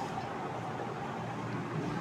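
Steady, even background noise with no distinct events, the room's ambient hum between words.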